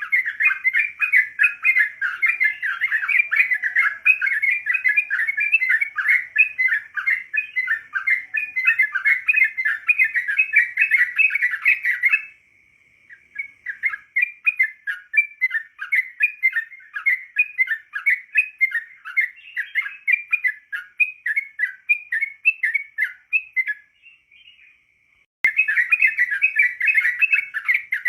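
Yellow-vented bulbul (trucukan) singing a fast, chattering run of chirps. The song breaks off abruptly twice, about halfway through and again shortly before the end, then picks up again.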